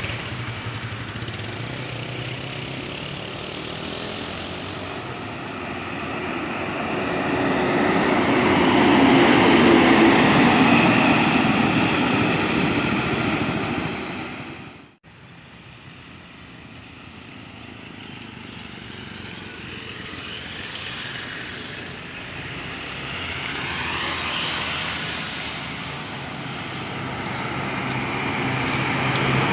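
Large buses driving past, with engine and road noise swelling to a peak and fading. It cuts out abruptly about halfway through, then builds again in slow swells.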